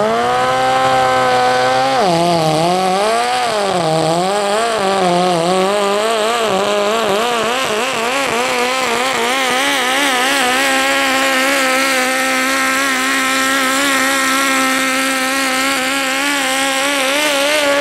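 Small pulling tractor's engine at full throttle, dragging a weight-transfer sled. The revs climb at the start, dip and waver rapidly for several seconds from about two seconds in, then hold steady and high.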